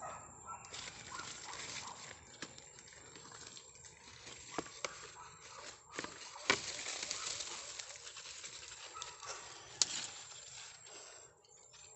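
Scratching and scraping of dry, gravelly soil as earth is dug away by hand from the base of a taro plant, with a few sharp knocks. The dry leaves and roots rustle as the taro corm is pulled up out of the ground.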